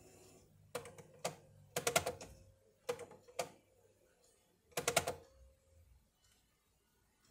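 Buttons on a Panasonic cordless phone handset's keypad being pressed, giving sharp clicks in irregular groups over about five seconds. Some presses are followed by a short steady tone.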